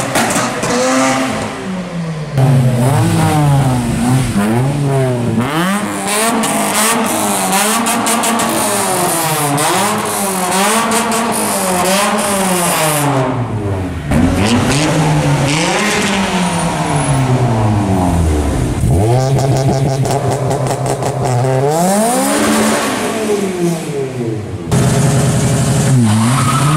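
Tuned Japanese car engines revved hard again and again inside a concrete underpass, the pitch climbing and dropping with each blip, in a series of cars one after another: a Mazda RX-7's rotary at the start and a Honda Civic near the end.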